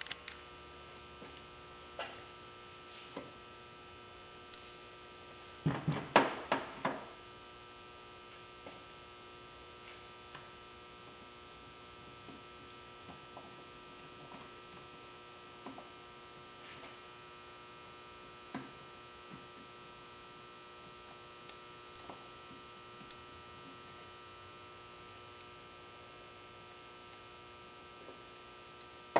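Steady mains hum under scattered light clicks and clinks of metal engine parts (pistons, connecting rods, wrist pins and retaining clips) being handled on a workbench. A short run of louder clinks comes about six seconds in.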